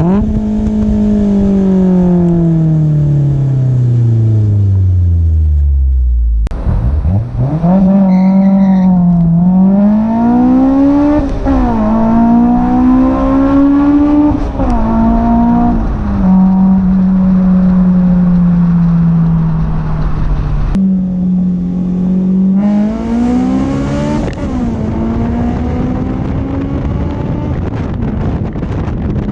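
Honda S2000 inline-four engine heard through a Tanabe Medallion Touring cat-back exhaust and Berk test pipe, in several short drive-by clips. First the note falls steadily as the car passes and slows. After a cut it accelerates, the pitch rising in pulls and dropping back at each upshift before holding a steady cruise. After a second cut it revs up again and settles.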